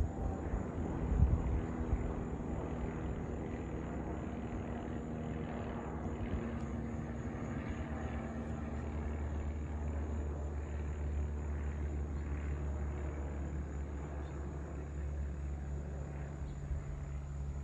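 Single-engine propeller plane flying overhead, its engine and propeller droning steadily. A brief rumble of wind hits the microphone about a second in.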